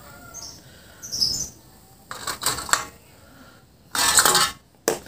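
Light metal clatter and scraping as a cut-down drink can and pliers are handled on a tiled floor, in short bursts with the loudest rattle about four seconds in and a few sharp clicks at the end.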